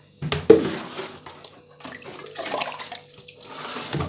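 Water pouring and splashing in a few uneven spurts, with the sharpest splash about half a second in, as chopped onions and garlic are rinsed.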